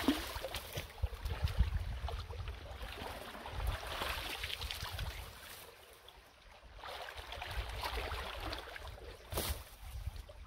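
Water splashing and sloshing as a person wading in a shallow stream pulls sticks and debris out of the clogged inlet of a corrugated metal culvert pipe, in several bouts with quieter spells between. The splashing comes from clearing the clog so the water can drain through the culvert.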